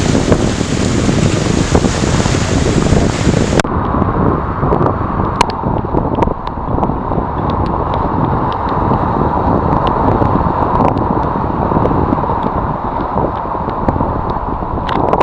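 Wind buffeting the microphone over surf breaking on rocks, a loud steady rumbling wash. About three and a half seconds in, the high hiss drops away abruptly, leaving the lower rumble of wind and waves.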